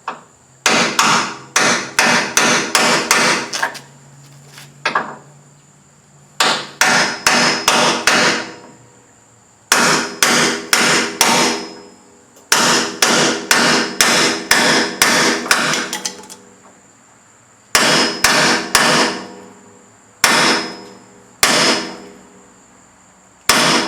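Hammer blows on a socket used as a driver, knocking a leaf-spring shackle bushing into place. The ringing metal strikes come in quick runs of several, about four or five a second, broken by short pauses.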